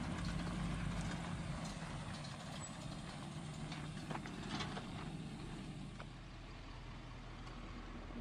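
Truck engine running steadily at low revs, with a few faint clicks.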